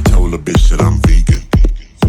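Background music with a heavy bass beat, dipping briefly near the end.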